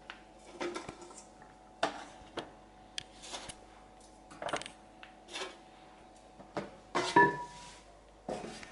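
Cookies being put into a tin: a series of light knocks and clatters at uneven intervals. The loudest is a short ringing clank about seven seconds in.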